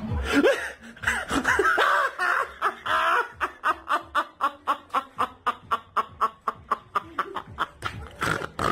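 A woman's voice exclaiming loudly, then breaking into a long fit of laughter: a steady run of quick, even 'ha' bursts, about four or five a second.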